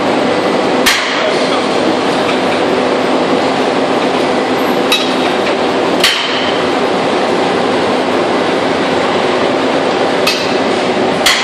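Workshop machinery running with a loud, steady din, broken by about five sharp metal clanks as metal rods strike the moulds of the machine.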